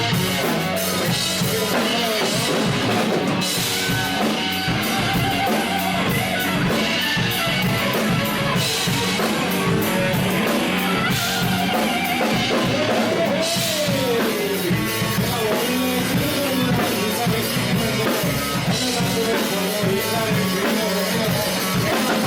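A band playing rock music live, with a drum kit keeping a steady beat under guitar.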